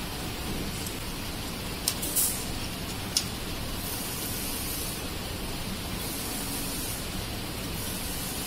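A few sharp clicks, about two and three seconds in, as the fastening parts are taken off a DTG printer's print-head carriage by hand, over a steady background hiss.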